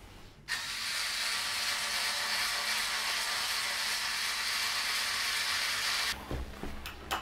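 Cordless drill-driver running steadily for about five and a half seconds, driving a bolt into a bed-frame leg, then stopping suddenly. A few light clicks follow near the end.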